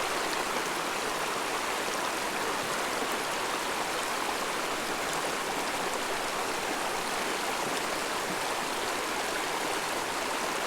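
Steady rushing of flowing stream water, an even hiss with no breaks or changes.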